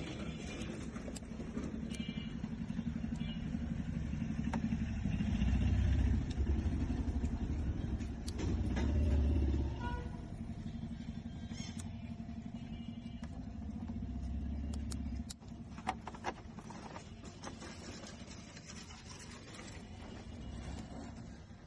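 Motor vehicle rumble with a steady low hum that swells louder three times, with scattered light clicks.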